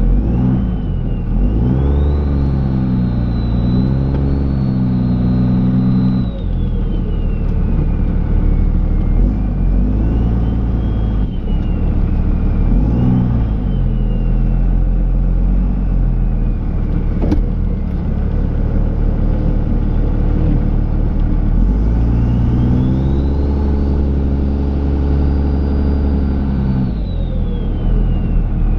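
Dodge Ram pickup's Cummins turbo-diesel engine revving up, holding, and dropping back several times while plowing snow, with a high whine that rises and falls with the revs. The two longest pulls come early and in the last third. There is a single sharp click partway through.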